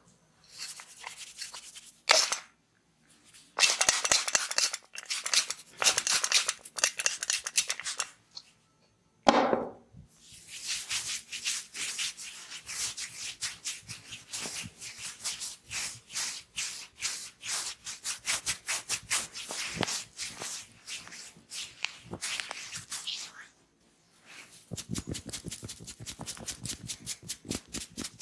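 Hands massaging a person's head and hair: bursts of rubbing and striking with a couple of sharp hits in the first third, then a long run of quick, even strokes that gets faster near the end.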